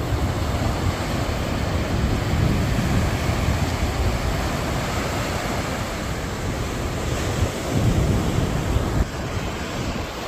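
Ocean surf breaking and washing up on a sandy beach, a steady rush that swells twice, with wind buffeting the phone's microphone.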